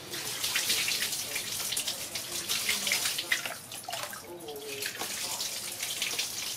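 Water poured from a plastic basin splashing over a baby monkey and onto a plastic mat, with a quieter lull about four seconds in.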